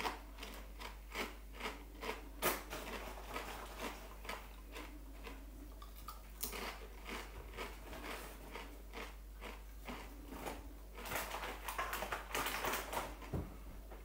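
A person biting and chewing potato crisps: a run of crisp crunches about two a second, coming thicker and faster for a couple of seconds near the end.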